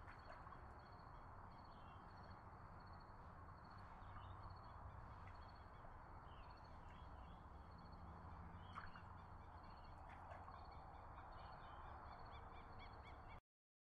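Near silence: a faint ambient hiss with a few faint high chirps and a steady faint pulsing high tone. It cuts off to total silence near the end.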